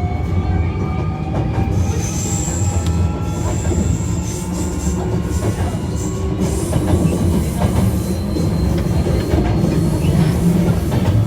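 Hankyu 1300 series electric train running, heard from inside the car. A rumble from the wheels and track runs under it. The Toyo IGBT inverter's motor whine rises slowly in pitch as the train accelerates, fading out about two seconds in. A thin high squeal follows for about a second and a half.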